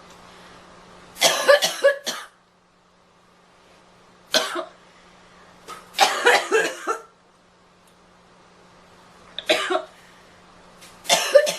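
A girl coughing in five separate fits, most of them a quick run of several coughs, with pauses of one to two seconds between them.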